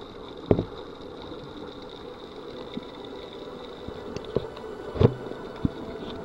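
Underwater recording: a steady low mechanical hum with a few short dull knocks, the loudest about half a second in and about five seconds in.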